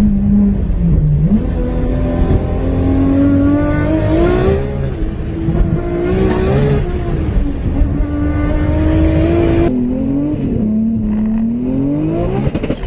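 High-horsepower car engine accelerating hard through the gears. Its pitch climbs, drops briefly at each shift, then climbs again. The sound changes abruptly about ten seconds in.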